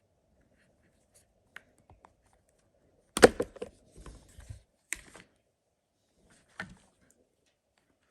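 Phone and case being handled: a few sharp clicks and knocks of hard plastic, the loudest about three seconds in, with smaller taps and rubs after it.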